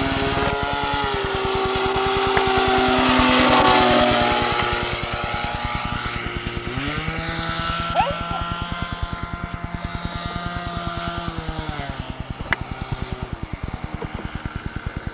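Small glow engine of an RC model biplane running, its pitch stepping up and down several times as the throttle is opened and closed.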